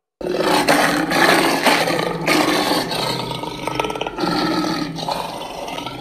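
Monster roar sound effect built from layered big-cat roars. It starts just after a brief silence and carries on as one long, rough roar-growl with rattling stretches, easing slightly toward the end.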